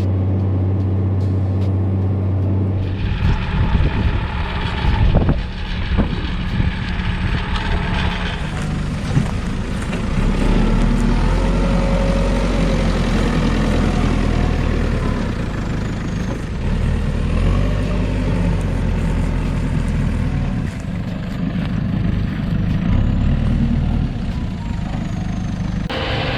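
Heavy farm machinery engines running with a steady low hum and mechanical rumble, the sound shifting several times as the shots change.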